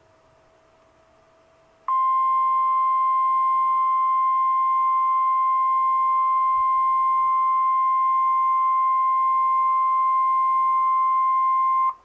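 NOAA Weather Radio's 1050 Hz warning alarm tone: one steady, loud beep that starts about two seconds in, holds unchanged for about ten seconds and cuts off sharply. It is the alert signal that a warning broadcast is about to follow, here a severe thunderstorm warning.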